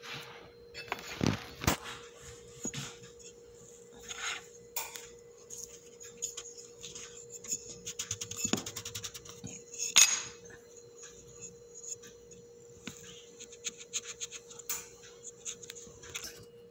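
Metal cookie cutter pressed into rolled dough and set down and lifted on the countertop: scattered light clicks, knocks and scrapes, the sharpest about ten seconds in, over a steady faint hum.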